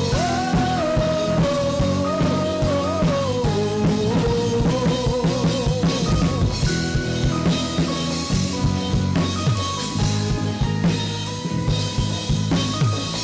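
A band playing upbeat rock-style music on drum kit and guitar. A wavering lead melody is heard over the band for the first six seconds or so, then drops out and the band carries on without it.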